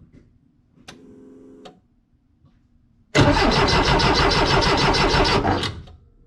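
Porsche 914's air-cooled flat-four being cranked on the starter for about two and a half seconds, with fast regular pulses, then cut off without catching. This is the crank-but-no-start fault that the owner traces to no fuel pressure from a dead fuel pump.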